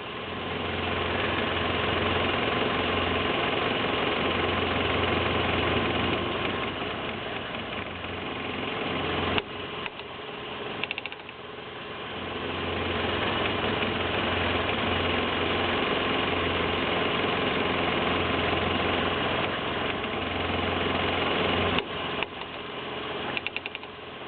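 Toyota Echo driving, with the noise that comes on under gentle braking: a steady noise builds and holds for several seconds, drops away suddenly about nine seconds in, builds again, and drops away again near the end, each drop followed by a brief rapid rattle.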